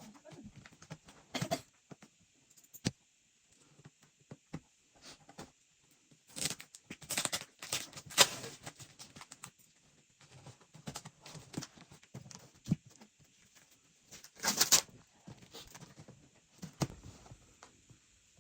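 A cardboard parcel being opened by hand: tape and cardboard tearing and rustling in irregular bursts, with scattered clicks and knocks, the loudest bursts about seven and fourteen seconds in.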